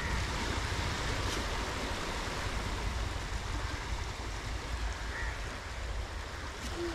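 Sea surf on a beach: a steady rush of waves breaking and washing up the sand.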